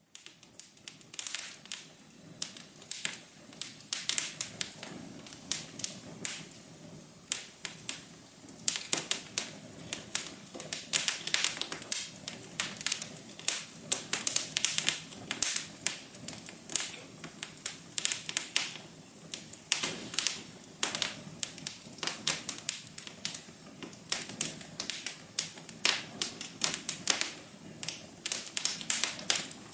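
Wood fire crackling: dense, irregular pops and snaps, several a second, over a soft steady hum.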